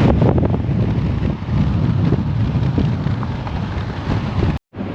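Steady low rumble of road and wind noise inside a moving car, which cuts out abruptly for a moment near the end.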